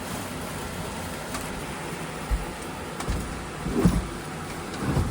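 Knocks and clunks from handling and pulling out an old air-conditioner coil, several short ones in the second half, over a steady background hiss.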